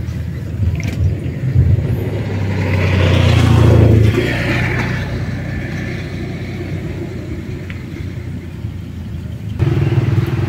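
A motor engine hums nearby, swelling to its loudest about four seconds in and then dropping off sharply. Near the end a second, steady engine sound starts abruptly.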